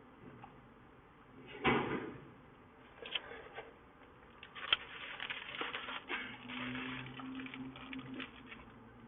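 Handling noises of a meal: a rustle about two seconds in, then scattered clicks and knocks of food packaging being handled. A low steady hum runs for about two seconds past the middle.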